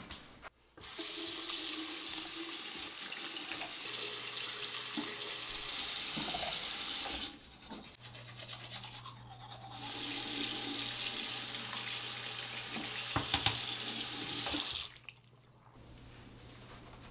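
Bathroom tap running into the sink and a toothbrush scrubbing teeth, in two long stretches of several seconds with a short break between, stopping near the end.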